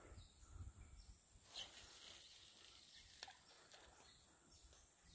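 Near silence: faint outdoor background with a couple of soft clicks.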